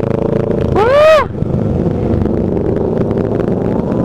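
Motorcycle engine running steadily while riding. About a second in, a brief loud pitched sound rises and then falls over it.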